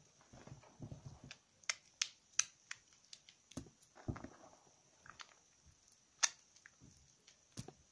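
Wet hands squeezing and rubbing slightly soaked bars of soap in a basin of thick lather: soft squelches with sharp wet clicks and pops scattered through, the loudest about six seconds in.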